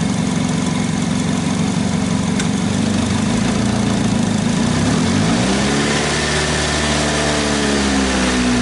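Car engine running with the automatic transmission in drive and the drive wheels spinning off the ground. It holds a steady hum, then about five seconds in the revs climb and the pitch rises, levelling off near the end.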